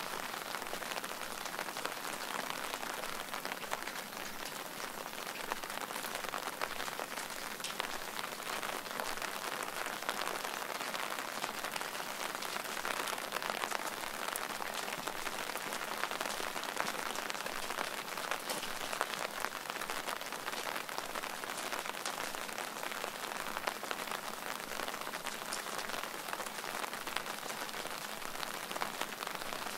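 Steady rain falling, with the quick ticks of many individual drops striking close by.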